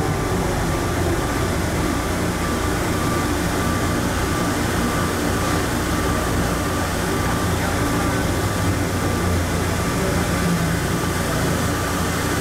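Rubber-tyred Plane Train people mover running through a tunnel, heard from inside the car: a steady rolling and motor noise with a low hum and a faint, on-and-off whine.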